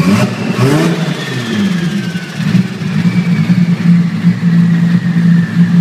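Nissan Skyline R34 GT-R's twin-turbo RB26DETT inline-six idling, with a quick throttle blip about half a second in that rises and then falls back to idle over the next second or so.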